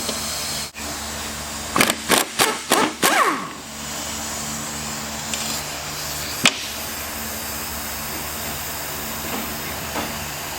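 A pneumatic impact wrench fired in several short bursts about two to three seconds in, its motor spinning down after the last, over a steady shop hum. A single sharp click follows a few seconds later.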